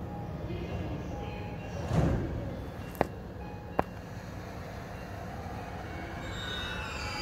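Electric commuter train at a station: a steady low rumble, a thump about two seconds in and two sharp clicks about a second later, then near the end several tones rise together as the train's traction motors start to whine.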